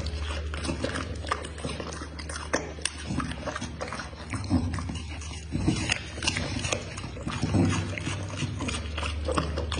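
A dog chewing food with wet lip smacks and mouth clicks that come irregularly, several a second.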